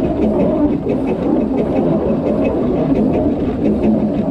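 Narrow-gauge steam locomotive Dolgoch, an 0-4-0 well tank, running with its train: a steady rumble with a faint regular ticking over it.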